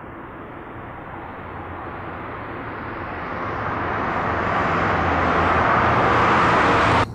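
A car approaching: its engine hum and rushing tyre noise grow steadily louder, then cut off suddenly about seven seconds in.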